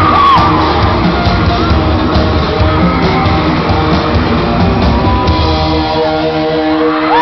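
Live pop-rock band playing on stage, with electric guitar and keyboards through a loud PA, heard from amid the audience. The low end drops away near the end.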